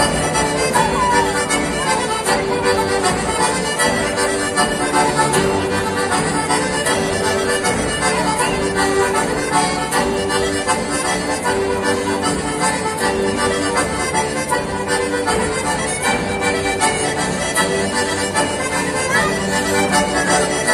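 Accordion playing a traditional Italian folk dance tune, with steady sustained notes and a repeating melodic pattern.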